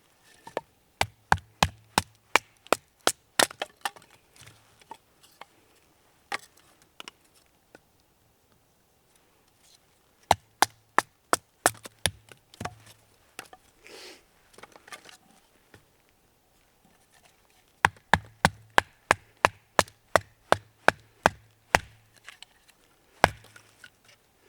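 A knife being batoned through a piece of firewood: sharp wooden knocks of a baton on the knife's spine in quick runs of about three a second, with pauses between the runs and a brief rasp of the wood splitting around the middle.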